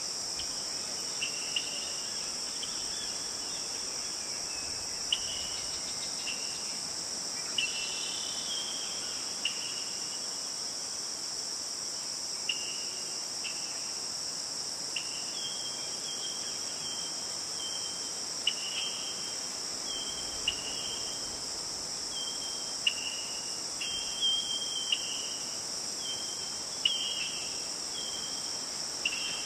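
Steady high-pitched chorus of insects such as crickets, with short chirping notes that come more often in the second half.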